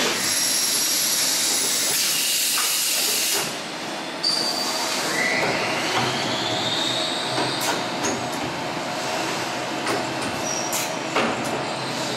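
Zuse Hüller Hille NBH horizontal machining centre running with a steady mechanical hiss. About five seconds in, a motor whine rises in pitch and then holds. Sharp clicks sound here and there as the tool magazine's gripper handles the tool holders.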